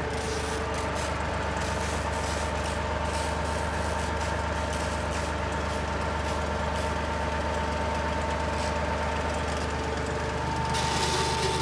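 Compact tractor engine running at a steady speed while driving a PTO boom-sprayer pump, with a steady thin whine over the low hum. A louder hiss comes in near the end.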